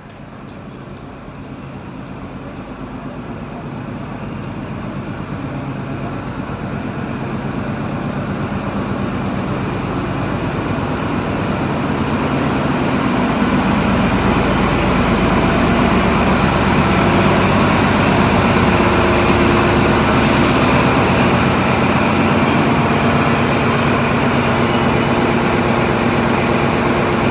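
Electric passenger train at the platform, its steady multi-tone hum growing louder over about fifteen seconds and then holding. A short hiss of air comes about twenty seconds in.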